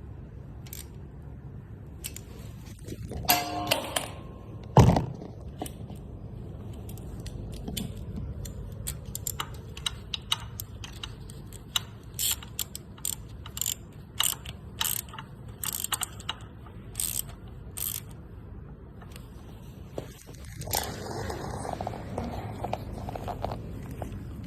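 Hand tools and metal parts clinking and scraping during work on a dirt bike's carburettor and air filter, with one sharp knock about five seconds in and a brief rustling burst near the end.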